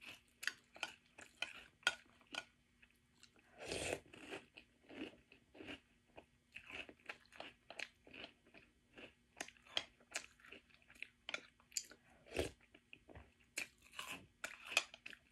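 Close-up crunching and chewing of French Toast Crunch, a crisp sweetened corn cereal, eaten by the spoonful: a quick, irregular run of crisp crunches, with two louder moments about four seconds in and about twelve seconds in.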